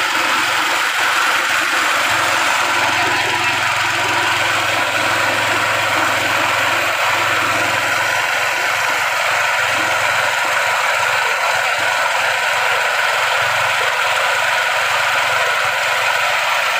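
A KD 500 WG mini rice milling machine running steadily under load as it mills paddy into white rice. The loud, even machine noise does not change and has a low hum beneath it.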